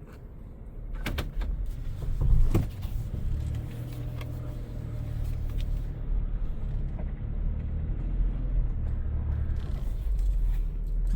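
A vehicle driving slowly, its engine and tyres making a steady low rumble, with a few sharp knocks about a second and two and a half seconds in.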